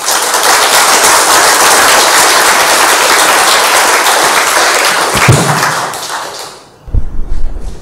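Audience applauding in a large hall at the end of a talk, dying away after about six seconds, followed near the end by a few low thumps.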